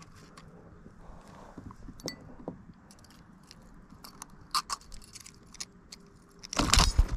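Handling noises: scattered small clicks and clinks, with a louder burst of clattering near the end.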